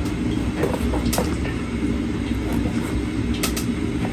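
A steady low rumble, with a few light clicks and scrapes of a kitchen knife cutting into whole tilapia on a ceramic plate.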